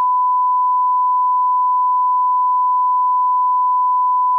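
A steady, unbroken 1 kHz line-up test tone, the reference beep that goes with broadcast colour bars, held at a single pitch.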